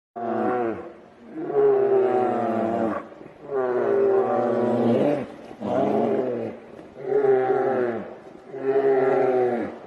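Two grizzly bears roaring at each other in a fight: about six long, drawn-out pitched calls in a row, each lasting a second or more with short breaks between.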